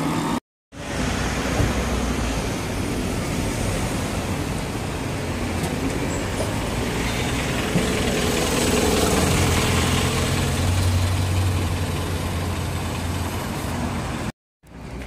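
City street traffic with an articulated city bus passing close by; its engine is loudest from about halfway through. Brief drops to silence at edit cuts come shortly after the start and just before the end.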